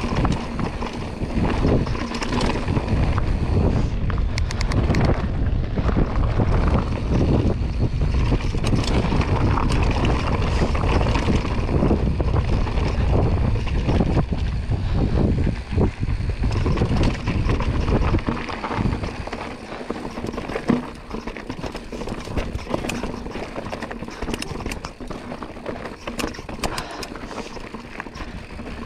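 Mountain bike riding fast down a rocky dirt trail: wind blasts on the camera microphone over tyres crunching on loose rock and the bike rattling. About two thirds of the way in the wind rumble drops off, leaving the tyre crunch and a run of sharp rattles and knocks from the bike over rough ground.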